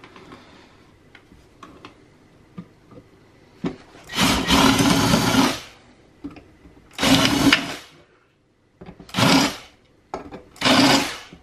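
Cordless drill running in four bursts, drilling out the fasteners of a planar speaker's metal frame: the first and longest starts about four seconds in, followed by three shorter ones. A few light taps come before it.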